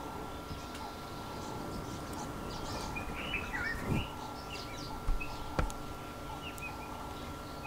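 Small birds chirping in the background, a cluster of short chirps around the middle, over a faint steady high tone. A low thud and a couple of light knocks come past the halfway point.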